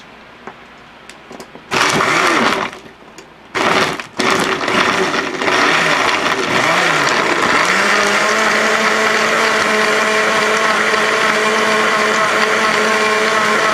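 Countertop blender blending ice cream and milk into a shake. It gives two short pulses, then runs continuously; its motor pitch wavers as it churns the thick ice cream, then settles to a steady running tone as the mix turns smooth.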